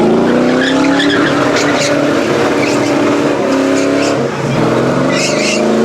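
Truck engine revving hard during a burnout, with the tires squealing. The engine note climbs in the first second, holds high, dips briefly about four seconds in, then climbs again.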